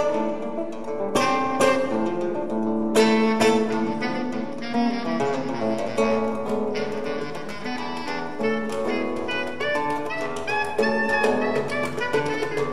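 Live acoustic trio: an acoustic guitar picking quick notes and a hand drum tapping, over long held notes from a bass clarinet.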